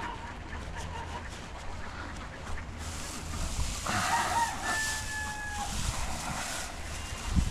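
A rooster crows once, about four seconds in: a couple of short notes, then a long held final note. A low thump comes near the end.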